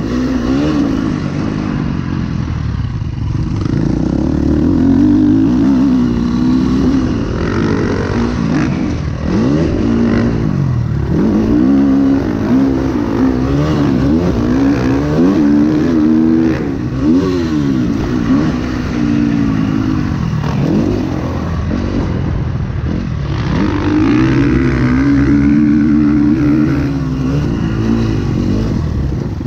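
KTM 350 SX-F four-stroke single-cylinder motocross bike engine under hard riding, its pitch repeatedly climbing under throttle and dropping back through gear changes and off-throttle moments.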